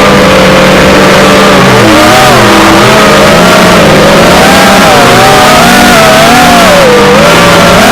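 Eachine Wizard X220 FPV quadcopter's brushless motors whining loudly, several motor tones wavering up and down in pitch as the throttle is worked.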